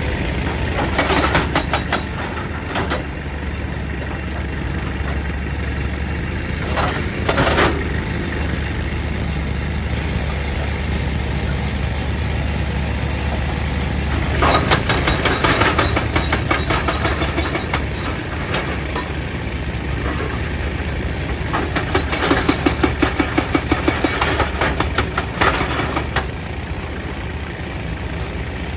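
JCB excavator's diesel engine running steadily while its hydraulic rock breaker hammers rock in several bursts of rapid, evenly spaced blows, the longest lasting a few seconds near the end.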